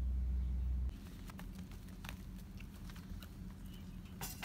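A steady low rumble cuts off suddenly about a second in. Then come scattered light taps and clicks of a Shiba Inu's paws walking on tatami, with a louder cluster near the end.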